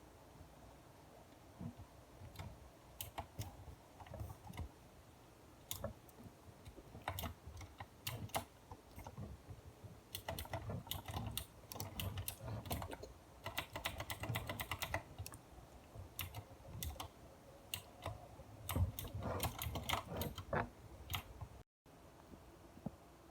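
Computer keyboard typing: irregular keystrokes and clicks in scattered bursts.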